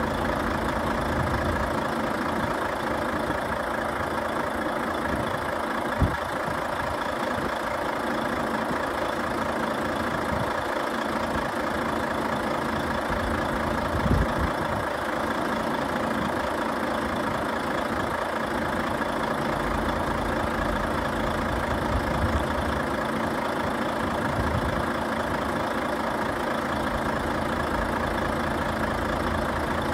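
Volvo FH 500 truck's 13-litre inline-six diesel idling steadily, with a sharp click about six seconds in.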